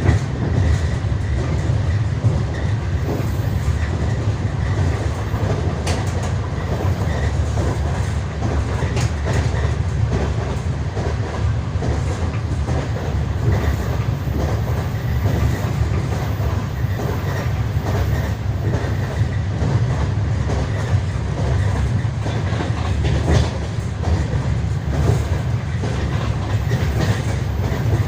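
Passenger train wheels clattering over the rails, heard from inside a moving carriage: a steady low rumble with scattered sharper knocks.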